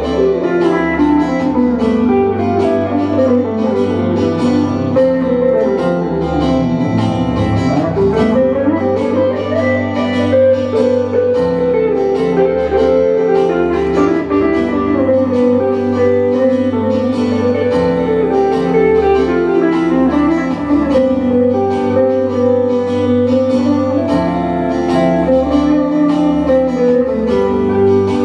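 Electric guitar playing an instrumental passage: melodic lines sliding up and down over steady sustained low notes.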